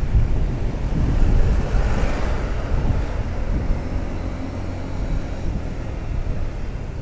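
Wind rushing over the microphone on a moving motorcycle, over the low rumble of its engine, swelling a little between about one and three seconds in.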